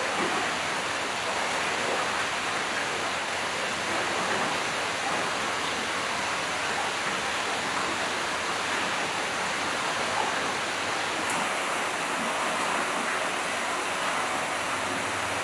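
Steady, even rush of running water, unchanged throughout.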